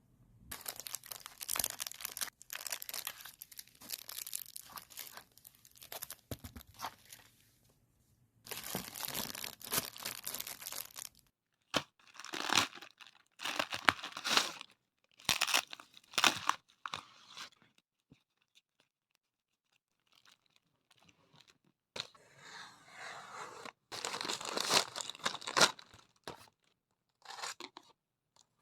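Packaging being torn open and crinkled by hand in repeated rustling bursts. There are a few sharp crackles partway through and a short pause before the rustling starts again.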